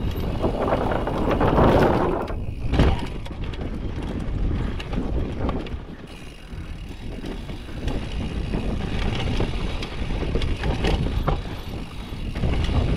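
Mountain bike tyres rumbling over the wooden slats of a banked corkscrew wall ride, loudest in the first two seconds or so, then the bike running over a rocky dirt trail with rattling and scattered knocks, one sharp knock about three seconds in.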